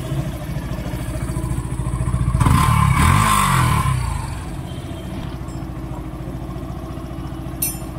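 Yamaha FZ V3's single-cylinder engine idling just after starting, with one brief rev about two and a half seconds in that rises and falls back to idle. A sharp click near the end.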